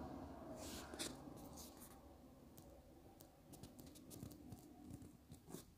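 Faint, scattered taps and scratches of a stylus writing on a tablet, over quiet room tone with a low hum.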